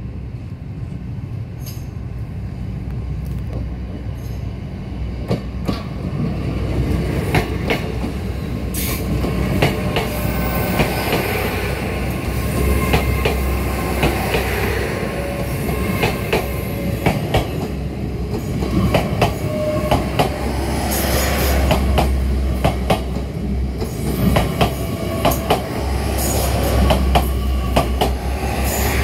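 GWR Class 802 bi-mode train passing slowly at close range over a level crossing. Its underfloor diesel engines give a steady low hum, and the wheels click over the rail joints many times, louder from a few seconds in as the carriages roll by.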